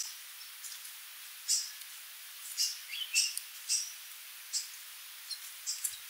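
Sooty babbler (Stachyris herberti) giving short, high-pitched call notes at irregular intervals, a dozen or so in all, with a couple of lower notes near the middle, over a steady hiss.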